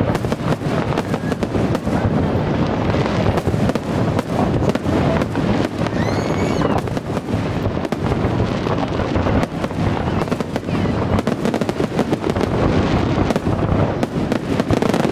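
Aerial fireworks display in full barrage: shells bursting one after another in a dense, continuous run of bangs and crackling.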